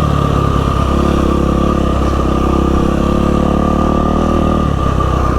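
Yamaha WR450F single-cylinder four-stroke dirt bike engine running steadily while riding a trail, with no big revs or gear changes.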